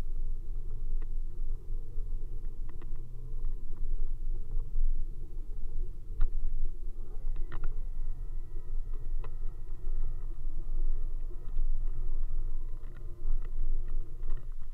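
Steady low rumble of wind and road noise on a camera held out on a pole from a moving bicycle, with scattered small knocks. About halfway in, a faint steady whine with several tones joins it.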